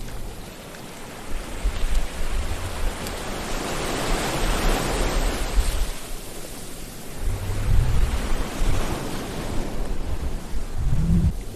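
Sea waves washing in: a hiss of surf that swells and fades, with deep rumbles in the second half.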